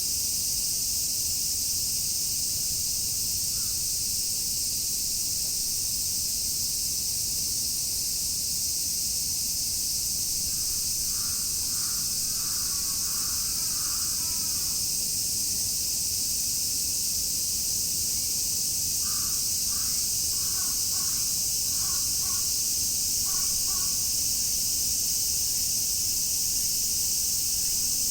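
A dense chorus of cicadas droning steadily. A bird calls over it in two bouts of short repeated calls, about eleven seconds in and again about twenty seconds in.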